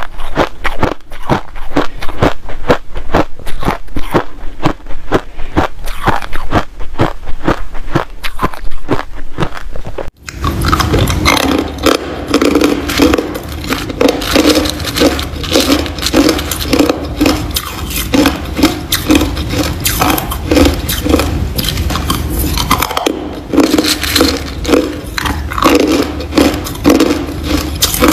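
Ice bitten and chewed close to the microphone. First crushed ice crunches in rapid, crisp cracks; after a sudden cut about ten seconds in, large chunks of clear ice are crunched in a denser, more continuous chew.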